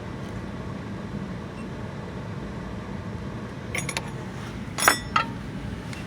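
Metal clinks as a key blank and a straight plate are fitted and lined up in a key-cutting machine's clamp: a few light clicks, then two sharper clinks about a second later, over a steady low hum.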